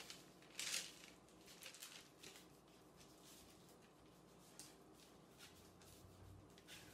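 Near silence with a few faint, brief rustles and light taps of cookie dough strips being handled on parchment paper, the clearest a little before one second in.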